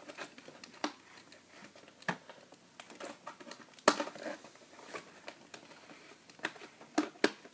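Toy packaging being opened by hand: scattered light clicks and rustles of plastic and cardboard as the toy is worked free of its ties, with a sharper click about four seconds in and another near the end.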